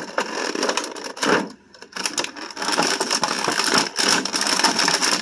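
Stiff clear plastic blister packaging crinkling and crackling as it is handled and pulled apart, with a short break about a second and a half in.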